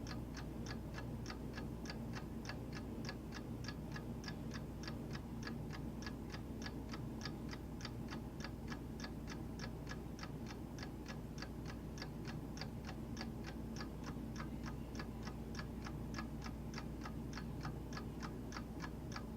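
A clock ticking in a fast, even rhythm of about four ticks a second, over a faint steady low hum.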